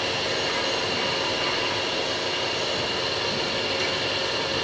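Hydraulic crane's power unit running steadily, an even mechanical drone with faint steady whining tones over it.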